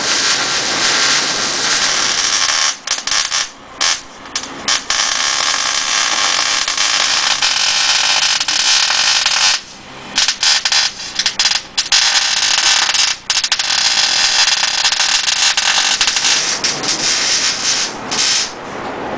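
Arc welding on a steel battery-rack frame: a steady crackling hiss, broken by a few short pauses between beads about three to five seconds in and again near ten seconds, stopping just before the end.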